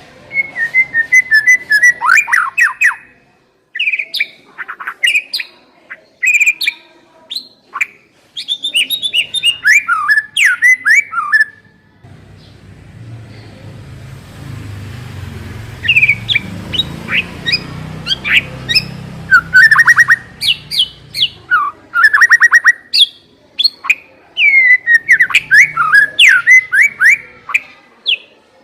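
White-rumped shama (murai batu) singing loud, varied phrases of quick whistled notes and rapid trills, with short pauses between phrases. A low rumble sits underneath for several seconds in the middle.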